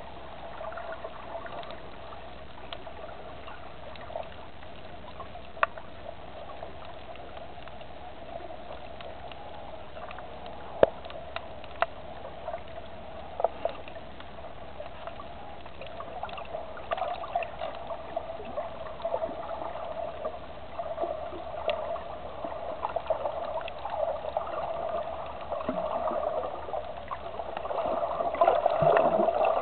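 Muffled underwater sound picked up by a camera in its waterproof housing: a steady mid-pitched hum over a hiss of water, with a few sharp clicks. The water sounds grow louder and more uneven over the last several seconds.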